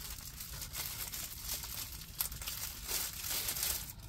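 Clear plastic protective film on a diamond painting canvas crinkling as it is handled, a continuous run of rustles and small crackles.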